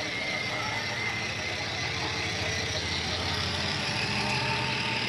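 Children's battery-powered ride-on motorcycle driving along: its small electric motor running steadily, with its plastic wheels rumbling over the tiles.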